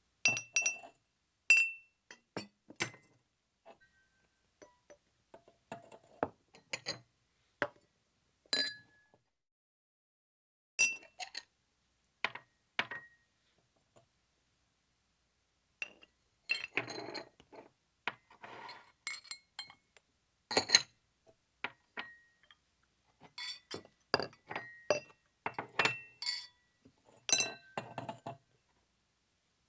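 Glass clinking in a series of separate sharp strikes, many leaving a brief ringing tone. The strikes pause twice, then bunch into a denser rattling run in the middle and come thick again near the end.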